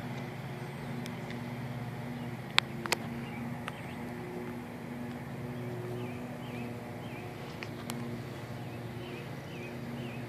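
A steady low machine hum, with two sharp clicks close together about two and a half seconds in. From about six seconds, a bird gives a run of short repeated chirps.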